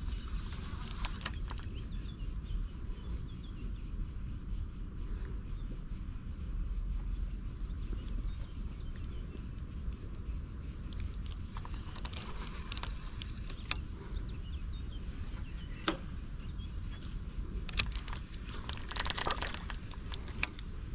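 Steady high chirring of crickets over a low background rumble, broken by a few sharp clicks and two short rattles from a fishing reel being handled and wound in.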